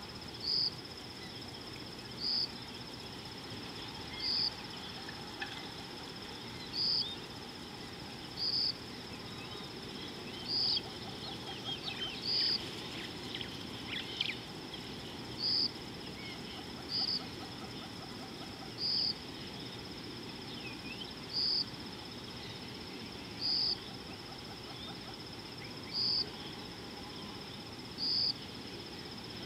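Bush ambience: a steady high insect trill with a short, louder chirp about every two seconds, over a low steady background rush. Scattered bird calls come and go, busiest around the middle.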